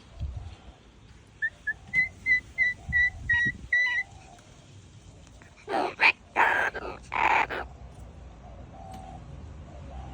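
Pet parrot whistling a run of about nine short notes at one pitch, then giving four loud, harsh squawks.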